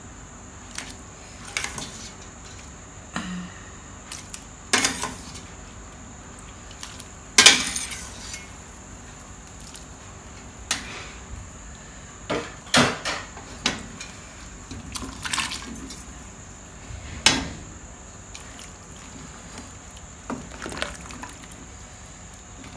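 A large spoon knocking and scraping against a cooking pot as pieces of meat are spooned into thick soup and pushed around, with wet sloshing. It makes irregular clanks every second or two, the loudest about seven seconds in.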